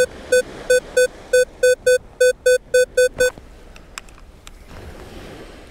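Minelab Vanquish 540 metal detector beeping its target tone as the coil sweeps over a buried metal target: about a dozen short beeps at one steady pitch, about four a second, stopping a little over three seconds in. The display reads target ID 11.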